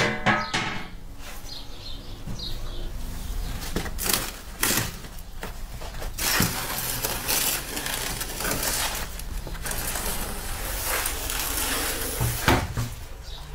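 Large metal roasting tray scraping across the oven floor and clanking as it is pulled out of a brick oven, then set down with a sharp clank near the end.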